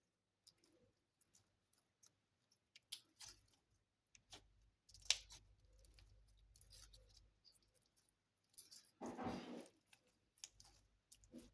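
Slime being pressed and stretched by hand: faint, scattered sticky clicks and crackles, with a sharp click about five seconds in and a louder, half-second squish about nine seconds in.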